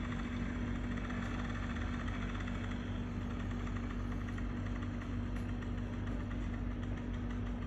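Steady low mechanical hum with a constant droning tone, unchanging throughout.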